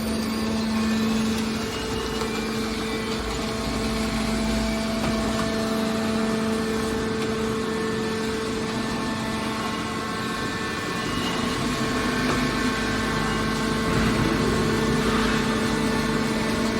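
Scrap car baler's hydraulic power unit running with a steady mechanical hum.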